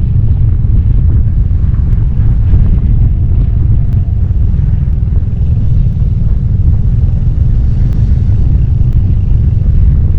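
Royal Enfield Hunter 350's single-cylinder four-stroke engine running while the bike is ridden, mixed with a heavy, steady rumble of wind on the microphone.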